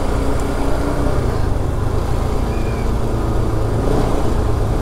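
Bajaj Pulsar RS200 motorcycle's single-cylinder engine running steadily.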